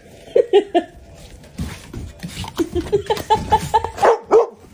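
A dog giving a quick series of short, pitched yips and whines, louder near the end.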